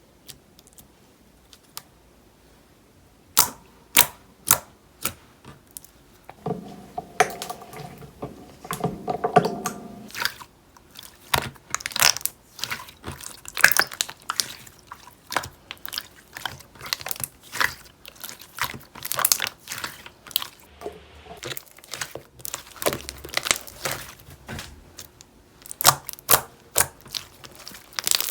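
Gold-pearl slime being squeezed and stretched by hand, giving sharp clicks and pops. The first ones come a few seconds in, and they turn into a dense, crackling run.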